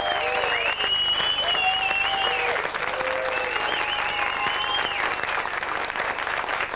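A studio audience applauding steadily, with long high tones rising and falling over the clapping.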